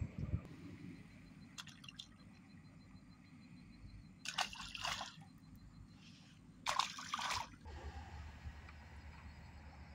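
Water splashing twice, in two short bursts about two and a half seconds apart. A low steady hum comes in near the end.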